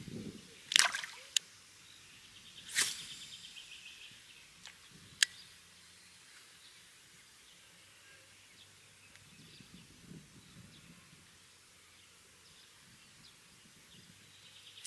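Quiet lakeside ambience with faint bird calls. Within the first five seconds come a few sharp, brief swishes and clicks, two of them louder than the rest.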